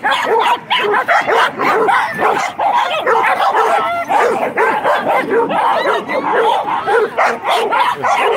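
Several dogs barking and yipping over one another in a constant, overlapping stream of short, sharp barks and higher yips as they run and play together.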